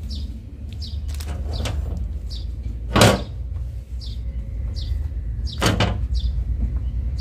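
Two sharp knocks, about three seconds in and again near the end, as parts and tools are handled on a steel workbench. Under them run a steady low hum and a bird's short chirp repeating about once a second.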